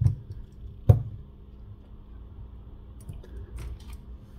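Small clicks from handling an opened smartphone as a USB-C charging cable is pulled out of its port on the charging board: one sharp click about a second in, with fainter ticks later.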